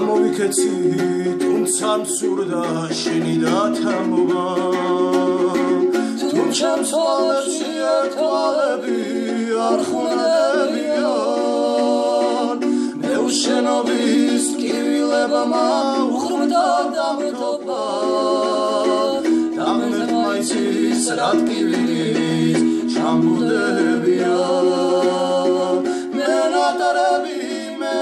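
Two men singing a Georgian song together, accompanied by a strummed plucked string instrument.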